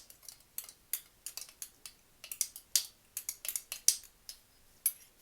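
A spoon stirring a lemon, ginger and water mixture in a pot, clicking and tapping irregularly against the sides.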